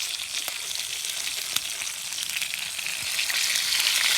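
Fish sizzling as it fries over a campfire: a steady crackling hiss that grows louder about three seconds in.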